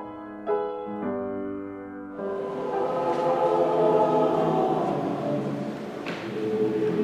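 Music: a few slow piano notes, then a choir comes in singing about two seconds in, in a gospel or spiritual style.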